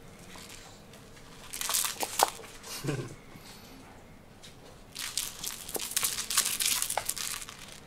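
Bursts of scratchy rustling and scuffling as a kitten wrestles a toy mouse on a string across a wooden floor, a short burst about two seconds in and a longer, busier stretch from about five seconds in.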